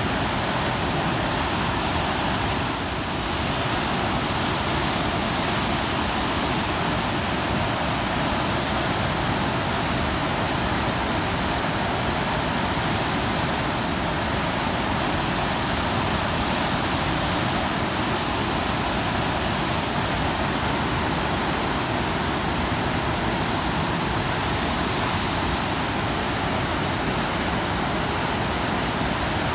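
Turbulent, silt-laden floodwater rushing steadily through the open sluice gates of an irrigation canal regulator, with a continuous loud churning rush of water.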